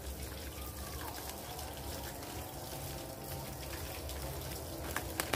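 Steady sound of running water, with a couple of sharp clicks about five seconds in as scissors cut into a plastic courier bag.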